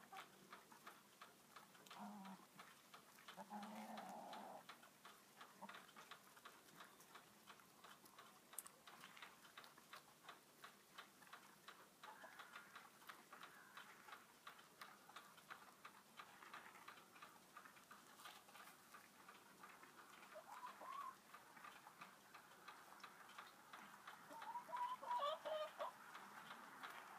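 Light raindrops ticking in a steady patter, with hens clucking softly a few times, loudest near the end.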